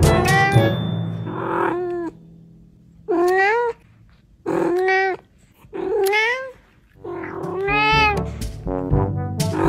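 A cat meowing repeatedly: about five separate drawn-out meows spread through a few seconds, each bending up and down in pitch.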